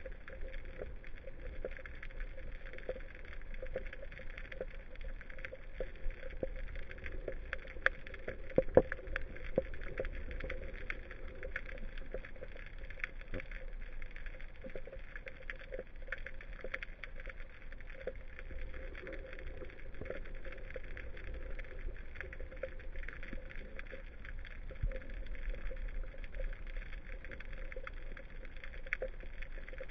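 Underwater ambience picked up by a camera in its housing on the seabed: a steady hiss and low hum with many scattered sharp clicks and crackles, the loudest a pair about 8 to 9 seconds in.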